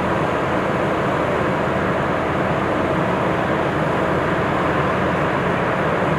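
Engine of heavy work equipment running steadily, a constant mechanical drone with no change in pitch or level.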